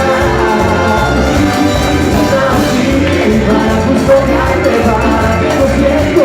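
Cuarteto band music with a steady Latin dance beat, with no lead vocal line in the transcript.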